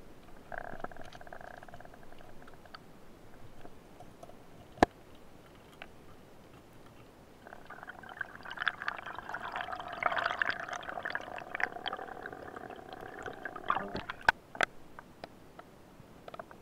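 Underwater handling noise as a diver's gloved hand grips a speared sea bream against the rock and the gear shifts. A scratchy, crackling rustle comes briefly at the start and again through the middle, with a single sharp knock before it and two more just after it ends.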